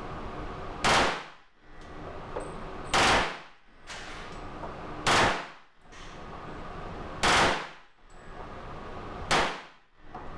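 A Glock 22 .40 S&W pistol converted to full-auto fires five short bursts about two seconds apart, each a loud crack echoing in an indoor range, over a steady background hum.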